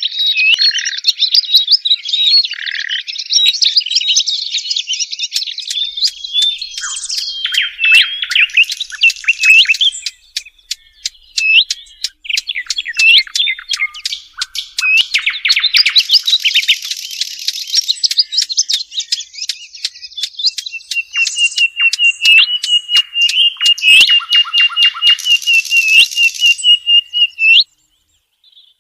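Small songbirds, the birds Arabian hunters call shuhaym, fasasi and zaradi, calling and singing in a dense run of high chirps and trills. From about two-thirds in, a fast train of short repeated notes takes over and then stops abruptly near the end.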